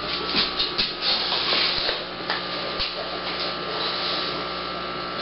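Scratchy rubbing and handling noise with many small clicks, over a steady electrical hum.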